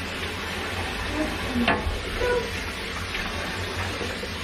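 Shower running: a steady hiss of water spray, with a brief knock about a second and a half in.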